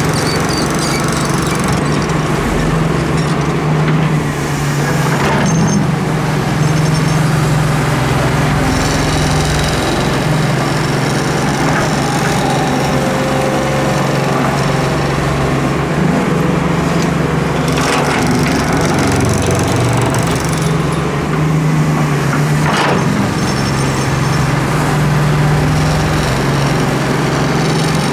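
Doosan Solar 130W-V wheeled excavator's diesel engine running under load while it digs and loads sand, its note dipping and rising with the work, with a few sharp knocks.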